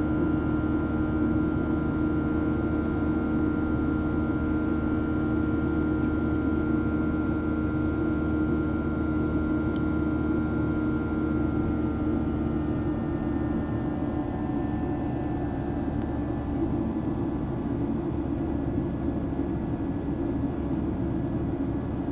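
Boeing 737-800's CFM56-7B jet engines heard from inside the passenger cabin during the climb: a steady drone carrying several engine tones. About two-thirds of the way through, the tones shift a little lower and the drone eases off slightly.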